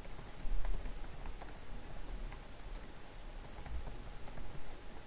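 Typing on a computer keyboard: a run of irregularly spaced key clicks.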